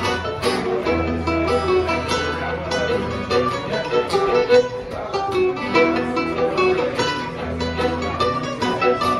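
Live acoustic string band playing an instrumental tune: bowed fiddle over acoustic guitar and a second plucked string instrument, with a steady rhythm of picked notes.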